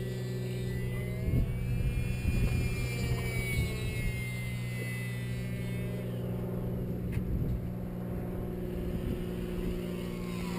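Faint high whine of an E-flite UMX Carbon Cub's small 3000 Kv brushless electric motor flying far off, slowly rising and falling in pitch as the plane manoeuvres. Under it is a steady low hum and wind rumbling on the microphone.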